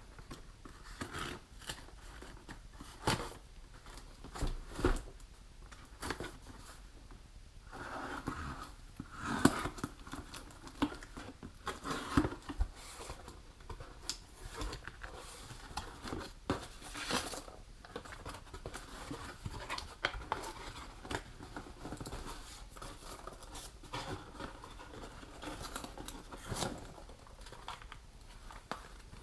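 A small product box being opened and its packaging handled: scattered clicks, tearing and crinkling of packaging.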